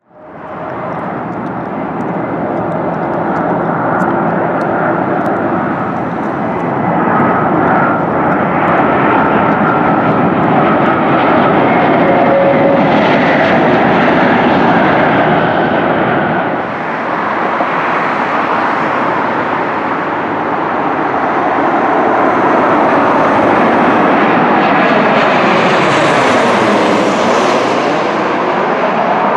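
Jet airliner engines, loud and steady: first a Thomas Cook Airbus A330 on the runway with a faint whine over its engine noise. About halfway through, a twin-jet airliner with its gear down passes low overhead on final approach, and its noise sweeps down and back up in pitch as it goes over.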